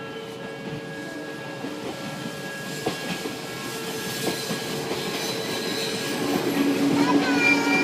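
Train approaching and passing a railway level crossing, getting steadily louder, with the crossing's warning bell ringing in steady tones and a rising whine near the end.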